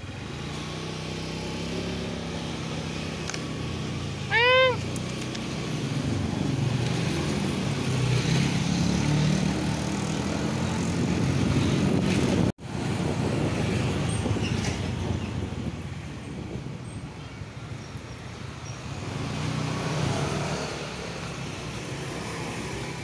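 Small motorcycle engine running while being ridden, its pitch rising and falling with the throttle. A cat meows once, briefly, about four and a half seconds in.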